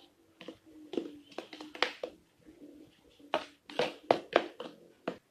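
Pink plastic hand scoop digging into and dropping potting mix into a square plastic pot, a string of short scrapes and taps in two bunches, about half a second in and again from about three seconds in.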